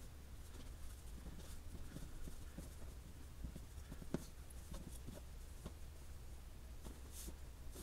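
Faint soft rubbing and light taps of hands rolling a sheet of dough into a log on a plastic cutting board, over a steady low hum.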